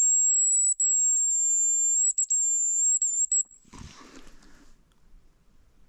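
Hazel grouse decoy whistle blown in one long, very high, thin note that wavers slightly and breaks off briefly a few times, stopping about three and a half seconds in. A short rustle follows.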